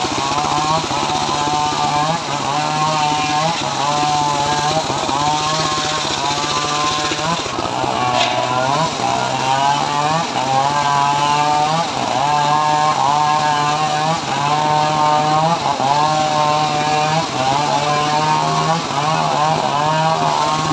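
Homemade engine-driven circular sawmill ripping a teak log lengthwise, the motor running steadily under load and the blade's whine wavering up and down about once a second as the log is pushed through. A single short crack about 8 seconds in.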